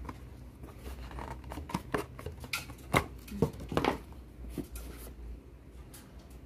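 A rigid white cardboard gift box being handled as its tight-fitting lid is worked off: a scatter of short scrapes, taps and rustles that thin out in the last couple of seconds.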